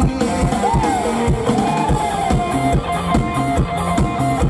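Live mor lam band music with a steady drum-kit and bass-drum beat, under a melody line that glides up and down and then holds a long note.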